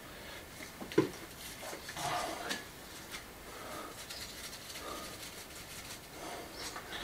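Faint, scattered scrapes and light knocks of hands working at a wooden window frame in a stone wall opening, with one sharper knock about a second in.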